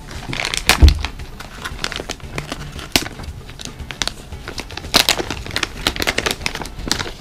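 Plastic cat-treat stick pouch crinkling as it is handled, with scattered small clicks and crackles and one dull thump about a second in.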